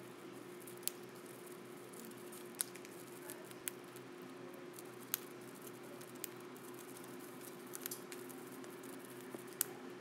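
Cockatiel cracking millet seeds off a millet spray with its beak: a handful of sharp little clicks at irregular intervals, over a steady low hum.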